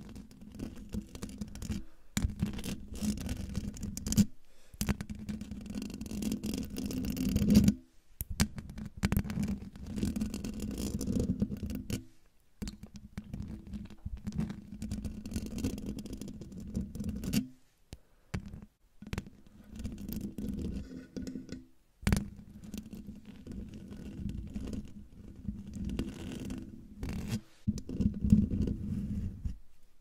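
Fingernails scratching and rubbing directly on a microphone's metal mesh grille, heard right up on the mic as a dense, rumbling scratch. It comes in stretches of a few seconds with short breaks between them.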